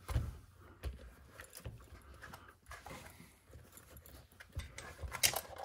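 Light clicks and knocks of plastic RC car parts as the suspension and wheel assembly is pulled off the chassis and handled on the bench, with a sharper clatter near the end.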